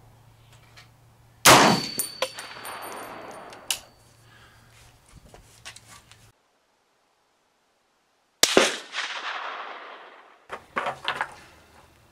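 Two loud rifle shots about seven seconds apart, each echoing away over a second or two. A thin high ring lingers briefly after the first, and a few light clicks come near the end.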